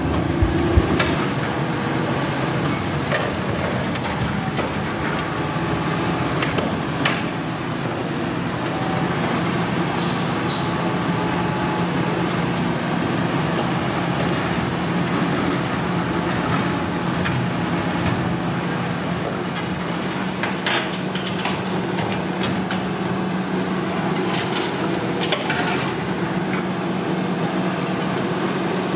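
Volvo EC480E high-reach demolition excavator running steadily under load, with scattered sharp metallic cracks and clanks as its demolition attachment tears into a steel silo.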